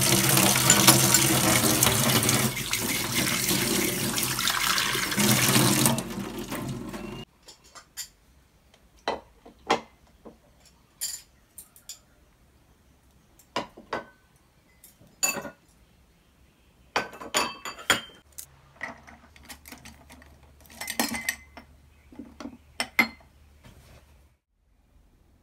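Tap water running hard into a stainless-steel sink as glass cups are rinsed under it, cutting off suddenly about seven seconds in. After that, scattered sharp clinks and knocks of glassware and dishes being set down, with short quiet gaps between them.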